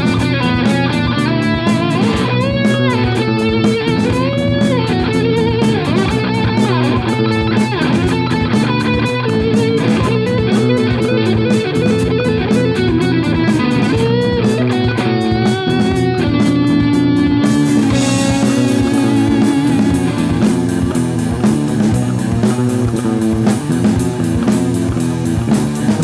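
Rock song with distorted electric guitars over bass and drums. About 17 seconds in, the crisp high ticking of the drums gives way to a steady cymbal wash.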